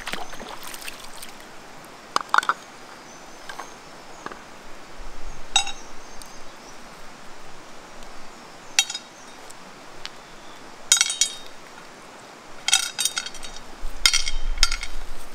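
Small river stones dropped by hand into a black metal frying pan, each landing with a sharp clink and a short metallic ring. The clinks come singly a few seconds apart, more often near the end.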